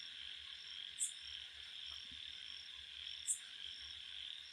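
Faint steady chirring of crickets, with two brief high ticks, one about a second in and one past three seconds.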